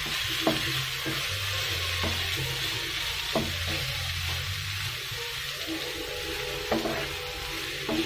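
Prawns frying in oil in a nonstick wok, sizzling steadily while a wooden spatula stirs them. The spatula knocks against the pan a few times.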